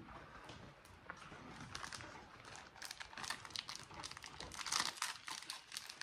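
Wrapper of a small food packet crinkling and tearing as it is opened by hand, a dense run of crackles that grows busier from about a second and a half in.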